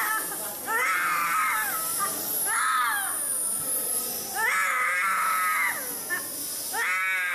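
A toddler crying hard through a nebulizer mask: four high-pitched wails of about a second each, with short breaths between them.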